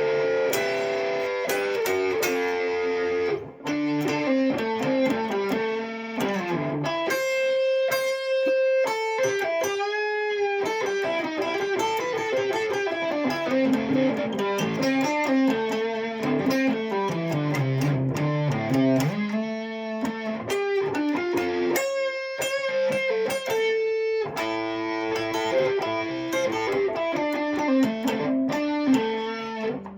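Guitar music: a guitar plays a continuous melody of quick plucked notes that step up and down in pitch.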